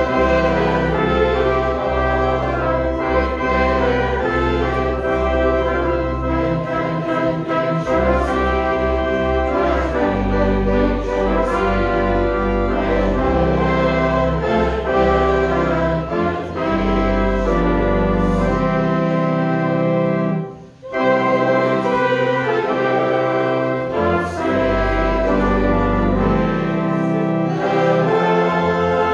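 Organ and brass playing a slow hymn in sustained full chords over a deep held bass, with one brief break about two-thirds of the way through.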